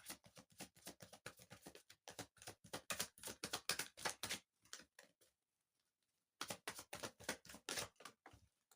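Tarot cards being shuffled: a quick run of soft, irregular clicks, several a second, that stops for about two seconds and then starts again.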